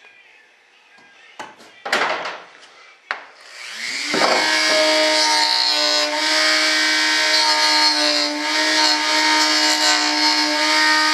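A few handling knocks and a short scrape, then a handheld rotary tool with a cut-off wheel is switched on about four seconds in, spins up with a rising whine and runs at a steady high speed.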